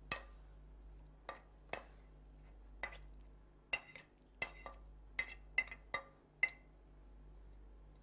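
A spoon clinking and scraping against a plate as fruit stuffing is spooned off it, about a dozen short, irregular ringing clinks that stop near the end.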